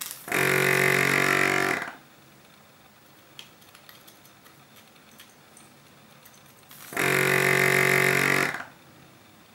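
Vacuum desoldering station's ERSA CU 100 A compressor switching on twice, each time running for about a second and a half with a buzzing hum and hiss. It is restoring the system's vacuum after the suction button on the X-Tool handpiece is pressed to suck molten solder off a pin. A few faint ticks sound between the two runs.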